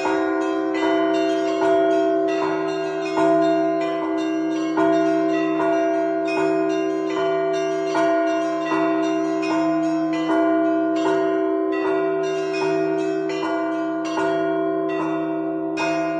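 Russian Orthodox church bells rung by two bell-ringers in a festal peal: rapid strokes on the smaller bells over a heavier stroke about every one and a half seconds, the deeper bells' tones hanging on underneath.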